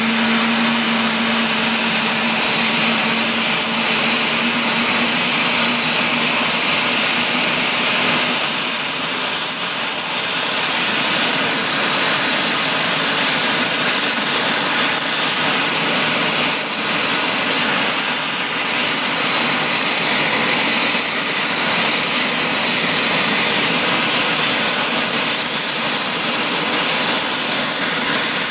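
Aérospatiale Gazelle helicopter's Turbomeca Astazou turboshaft running after start-up as the main rotor spins up: a loud, steady turbine whine with high whistling tones, one of which rises slightly in pitch about twelve seconds in. A low hum underneath fades out about eight seconds in.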